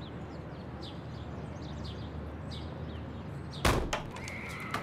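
Birds chirping over steady outdoor hiss, then a single loud whack about three and a half seconds in: a swung object striking a person's head. A thin, high held tone begins near the end.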